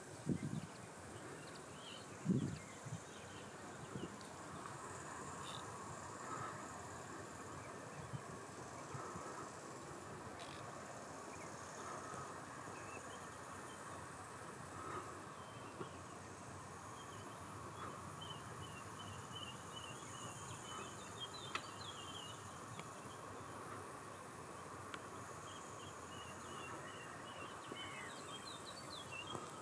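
Faint outdoor ambience: a steady hiss with a thin high buzz, light chirping in runs during the second half, and two low thumps near the start.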